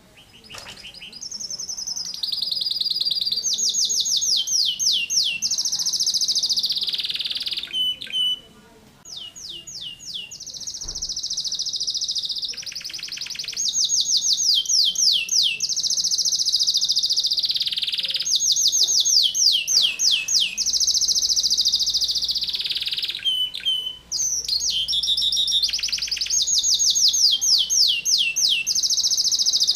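Domestic canary singing persistently in long, dense rolls of rapid-fire trills. Its song is high-pitched, with short breaks about eight seconds in and again near the end.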